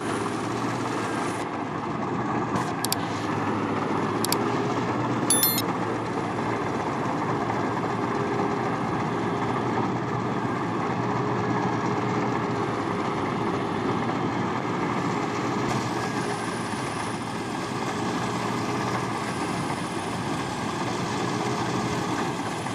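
A farm machine's engine running steadily, with a few short, sharp, high clinks between about three and five and a half seconds in.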